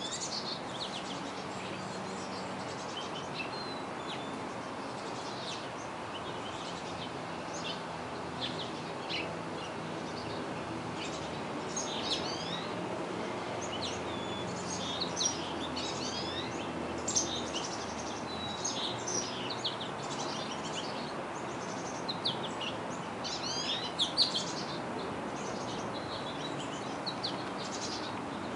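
Small songbirds chirping: many short, high, quick calls, busiest through the middle, over a steady background noise.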